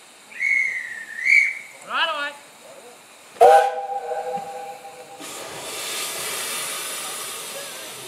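Narrow-gauge steam locomotive about to depart: two short high whistles, then the engine's steam whistle sounds once for about a second and a half, followed by a steady hiss of steam blowing from the front of the locomotive.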